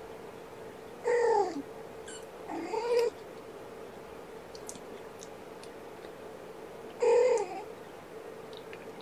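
Cat meowing three times: two short meows about a second apart, the first falling in pitch and the second rising, then a third falling meow some four seconds later.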